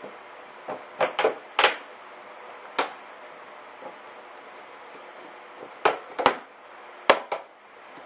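Hollow plastic knocks and clicks as a white PVC elbow is pressed and twisted onto a PVC pipe stub set in a plastic ice chest lid: about eight sharp knocks in clusters, several close together about a second in and again near the end.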